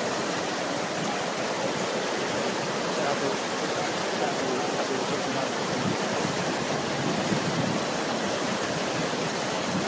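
Fast-flowing floodwater rushing steadily, an even, continuous wash of water noise.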